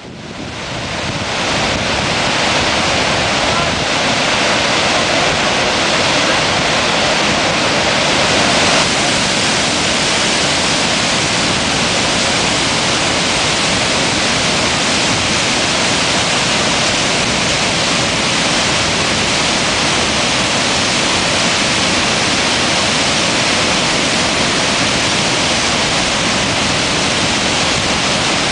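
Gullfoss waterfall: a large volume of water plunging and crashing in a steady, loud rush. The sound rises in over the first couple of seconds and then holds even.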